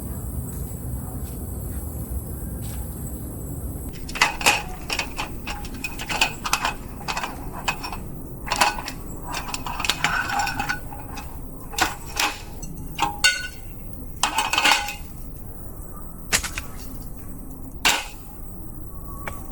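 Irregular clinks and knocks of camp cookware and utensils, coming in quick clusters after a few seconds of steady low background noise.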